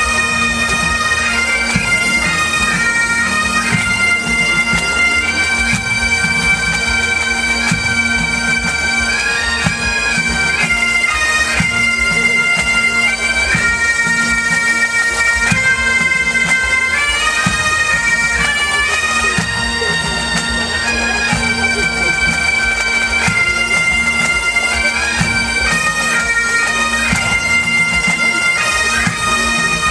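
Pipe band playing: Great Highland bagpipes sound a stepping melody over their steady drone, with drums beating beneath.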